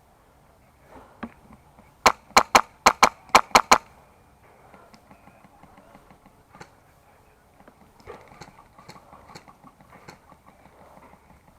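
Airsoft rifle firing a rapid string of about eight sharp shots over about a second and a half, about two seconds in. Fainter scattered clicks and rustling follow.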